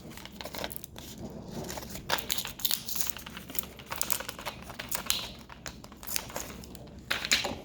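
Plastic packaging crinkling and crackling with small clicks as a new CR2032 coin-cell battery is taken out of it. There are louder rustles about five seconds in and near the end.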